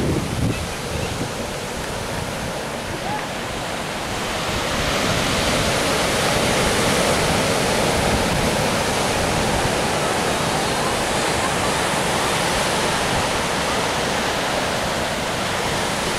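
Ocean surf breaking and washing up on a sandy beach, a steady rushing noise that grows louder about four seconds in. Some wind buffets the microphone near the start.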